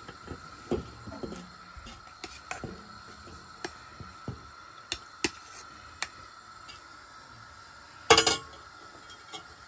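Scattered metal clinks and knocks as drained, parboiled rice is tipped from a metal bowl into a pan and spread with a slotted steel spoon. The loudest clatter comes about eight seconds in, as the spoon works the rice in the pan.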